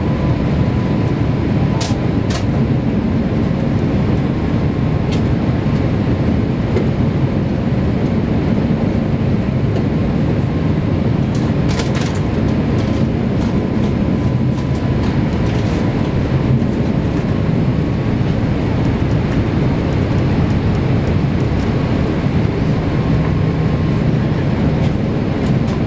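Steady, loud cabin rumble of a Boeing 787-8 Dreamliner in descent, engine and airflow noise heard from inside the cabin over the wing. A few faint clicks come about two seconds in and again about twelve seconds in.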